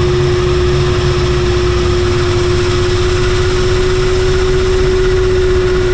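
Attack helicopter in flight, heard from inside the cockpit: steady engine and rotor noise with a constant humming tone.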